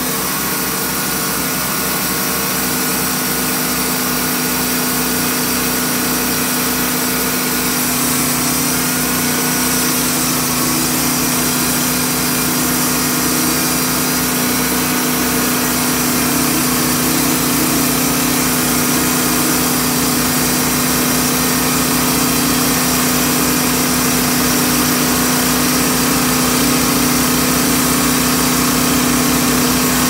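The engine of a TimberKing B-20 sawmill running steadily, with an even low pulsing. Its note shifts slightly about eight seconds in.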